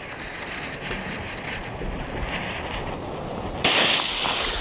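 Low wind noise while a lighter is held to a firework fuse; about three and a half seconds in, the fuse of an ABA Devil Scream fire pot catches and burns with a sudden, loud hiss.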